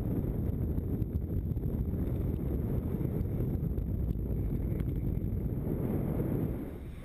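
Wind rushing over the camera microphone on a paraglider in flight: a steady low rumble of airflow buffeting that eases off near the end.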